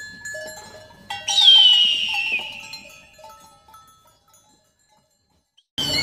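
Hawk giving a single harsh, descending scream about a second in that lasts just over a second, with a few short lower notes around it. Just before the end a steady outdoor background with another bird's call cuts in.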